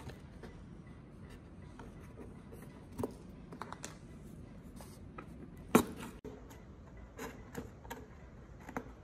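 Wooden toothpicks being poked into holes in a cardboard box, with small fingers tapping and rubbing on the cardboard: a handful of light, scattered taps and scrapes, the sharpest one about two-thirds of the way through.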